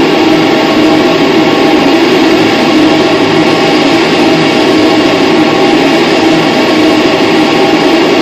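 Live noise/drone music played loud: a dense, unbroken wall of sustained droning tones over a grinding haze, heaviest in the low middle range, holding steady throughout.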